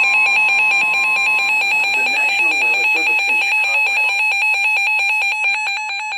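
Emergency alert attention tone: a loud two-tone electronic alarm, pulsing rapidly and evenly, signalling the start of a severe thunderstorm warning broadcast.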